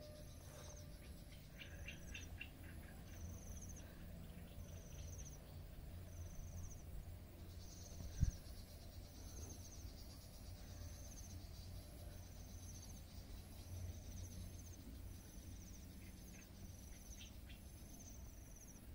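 Rural insect chorus: short high trills repeating about every second and a half over a steady, very high insect whine, with a few brief bird chirps and a low rumble beneath. One sharp click about eight seconds in.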